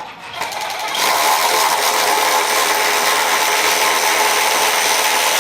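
A power tool starts with a few short stutters, then runs steadily for about four seconds.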